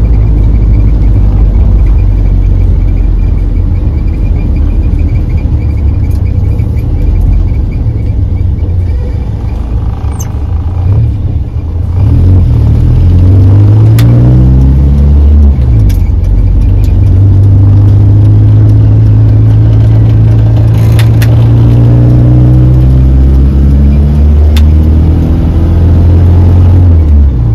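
Morris Minor's four-cylinder engine and road noise while driving. The engine eases off about ten seconds in, then pulls away with its pitch climbing, settles into a steady run that rises gently, and drops off near the end.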